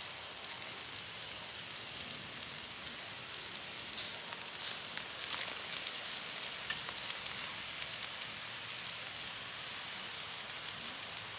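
Kupaty sausages sizzling in a wire grill basket over charcoal on a mangal: a steady hiss with scattered crackles and a couple of louder pops about four and five seconds in.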